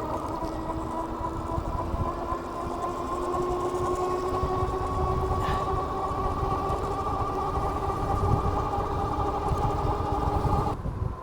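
Electric whine from the Philodo H8's AWD hub motors under power, rising slowly in pitch as the bike gathers speed, then cutting off suddenly near the end as the power drops. Wind rumbles on the microphone underneath.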